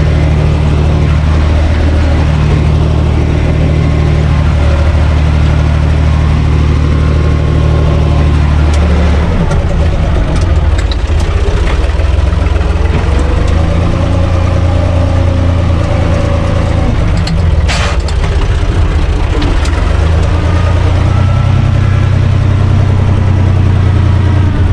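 UTB Universal U445 tractor's diesel engine running steadily under load, heard from inside the cab, while it drives a rear rotary tiller through garden soil. The engine note shifts about nine seconds in, and there are a few light clicks and one sharp metallic clank about two-thirds of the way through.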